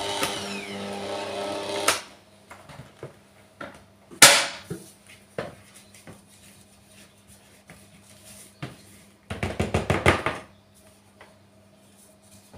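Stand mixer motor running, then switched off and winding down with a falling whine that stops about two seconds in. A sharp clack follows at about four seconds as the mixer head is tilted up, with scattered small clicks. Near ten seconds comes a quick run of knocks as a wooden spatula scrapes batter off the beaters and against the plastic bowl.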